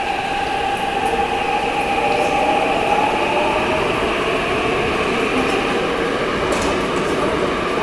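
Seoul Subway Line 6 electric train pulling out of an underground station: a steady rumble of the running train, with a motor whine that rises a little in pitch over the first three seconds and then fades.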